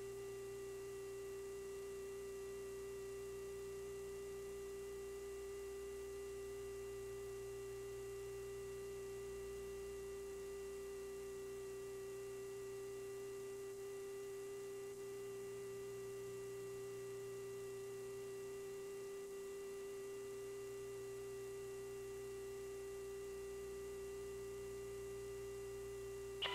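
Steady electrical hum on a helicopter's intercom audio: one unchanging tone with fainter overtones, typical of aircraft 400 Hz AC power leaking into the recording.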